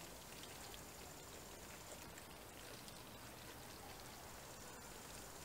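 Pot of sauce simmering on a gas grill burner: a faint, even hiss with light pattering bubbles.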